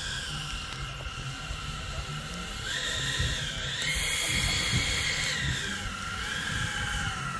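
Twin electric ducted fans of a scale F-14 RC jet whining as it taxis. The whine rises in pitch and grows louder about three seconds in, holds, then falls back near six seconds as the throttle comes down.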